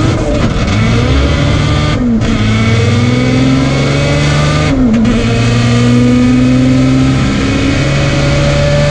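Turbocharged Honda B-series VTEC four-cylinder in a front-wheel-drive drag Civic at full throttle, heard from inside the cabin. The engine climbs steadily in pitch through the gears, with brief cuts and a drop in pitch for upshifts about two and five seconds in.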